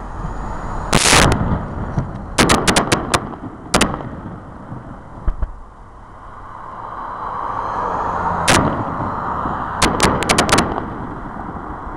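Aerial fireworks shells bursting with sharp bangs: one big bang about a second in, a quick run of five or six bangs around two to three seconds, single bangs a little later, and another fast cluster near the end. A rushing background noise swells in the second half.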